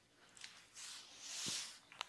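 Hands rubbing during a massage: a soft hiss that swells and fades over about a second, with a small click about half a second in and a light thump at its peak.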